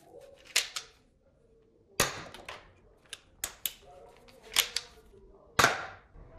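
A string of sharp plastic clicks and knocks, irregularly spaced, as a toy foam-dart blaster and its clear plastic packaging tray are handled.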